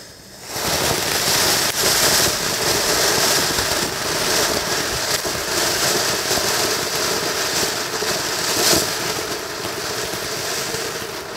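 Ground firework fountain hissing steadily as it sprays sparks, with occasional crackles; it flares up about half a second in.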